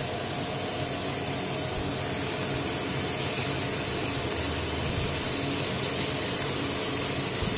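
Vegetables sizzling in a hot kadhai over the gas flame: a steady, even hiss.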